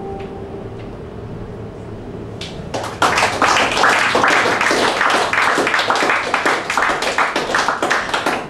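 The last held note of the song fades out, then an audience applauds from about three seconds in.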